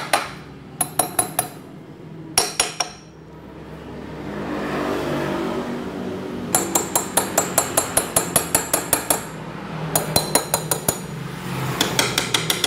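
Light, quick metal taps on a two-stroke motorcycle cylinder block, a hammer driving the Yamaha F1ZR block down over its studs onto the crankcase. The taps come in short bursts, with the longest fast run of strikes about two-thirds of the way through.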